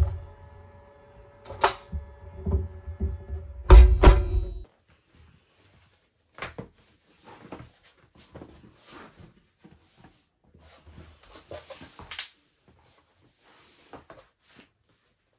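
Tumble dryer door knocking open and shut over a steady hum, a few sharp thunks with the loudest near four seconds in. The hum cuts off suddenly, followed by soft intermittent rustling of clothes being handled.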